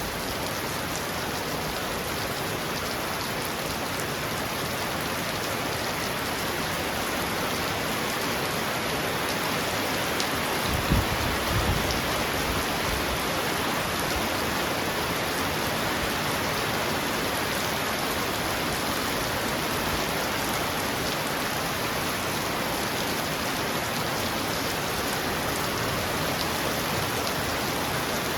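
Heavy rain pouring steadily onto a roof, with a brief low rumble about a third of the way through.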